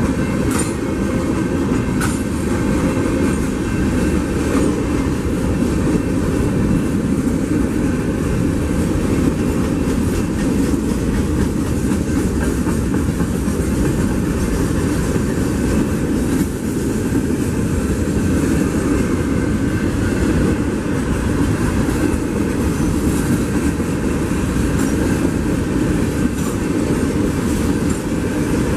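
BNSF freight train's boxcars and covered hoppers rolling past close by at a grade crossing. A steady loud rumble with clickety-clack wheel clatter over the rail joints, which does not let up.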